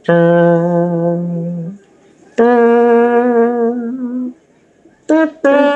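A person humming a tune in long held notes, in three phrases with short breaks between them, mock entrance music for a drink.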